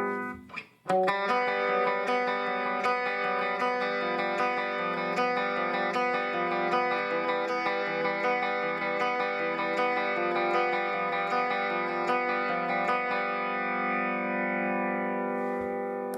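Electric guitar played through a 12-inch combo guitar amplifier, with sustained notes and regular picked attacks. The sound drops out briefly about half a second in, then runs on and fades near the end.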